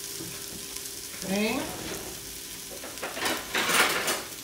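Chopped onions and garlic sautéing in olive oil in a pot, a steady sizzle. About three seconds in come a few louder scraping, rustling noises.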